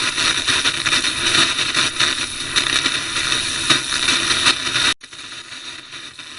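Loud harsh static noise of a broken-up broadcast signal, crackling and flickering, which cuts off suddenly about five seconds in to a faint hiss.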